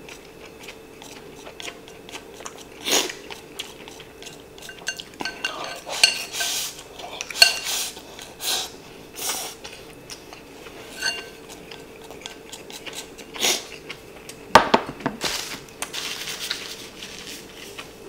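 Wooden chopsticks clicking and scraping against a ceramic rice bowl as food is scooped up, in scattered clinks with a faint ringing. Near the end there is one heavier knock.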